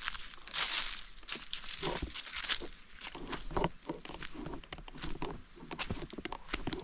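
Footsteps crunching and rustling over dry leaves and twigs on dirt ground, in an uneven string of crisp crackles.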